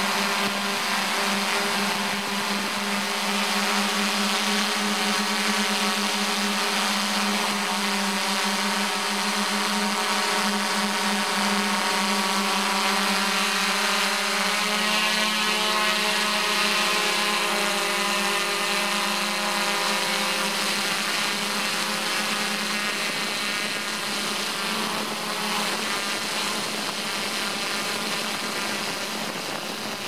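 Camera drone's propellers and motors running in flight: a steady, high-pitched whine with a hiss, the pitch shifting slightly about halfway through.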